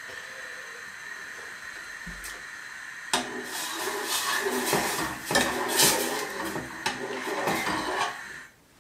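A metal spoon stirring milk in a stainless-steel saucepan, scraping and clinking against the pot from about three seconds in, over a steady hiss. Both stop abruptly shortly before the end.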